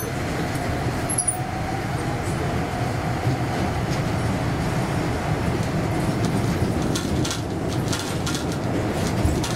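Airport automated people-mover train running, heard from inside the car: a steady rumble and running noise.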